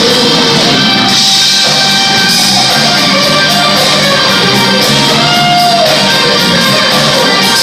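Live rock band playing loudly, with electric guitar over bass and drums.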